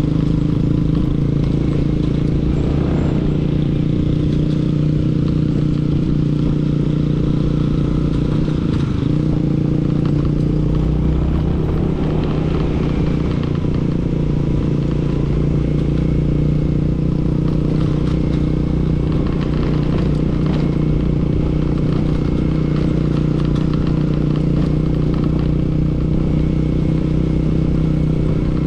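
Motorcycle engine running at a steady pace while riding, with a constant low rumble underneath.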